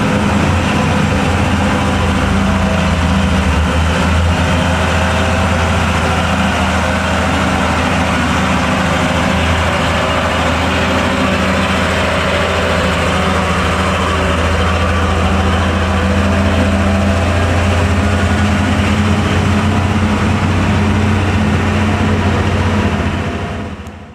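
Mitsubishi Fuso 220PS truck's diesel engine pulling steadily at low speed as the loaded truck crawls up a hill, a deep, even drone that fades out at the very end.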